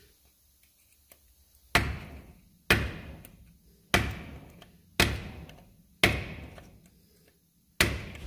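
Six sharp hammer blows on a steel punch, about a second apart with a longer gap before the last, each ringing briefly. They are bending the lock-tab washer over the front hub bearing lock nut of a Range Rover Classic.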